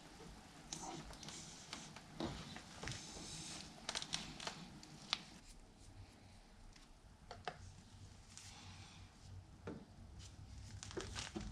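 Scattered small clicks, taps and rustles of a plastic washing machine drain trap being handled and clipped onto a drain pipe, with one sharper click about five seconds in.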